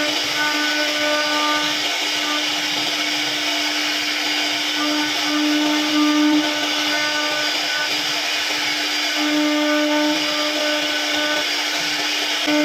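CNC router spindle running with a steady whine while its bit carves wood. The cutting noise swells a little now and then.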